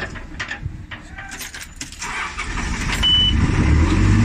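Cat 428F backhoe loader's diesel engine running, heard from the cab, growing louder about two seconds in. A few sharp clicks and rattles in the first two seconds, and one short high beep a little after three seconds as the shuttle lever is put into reverse.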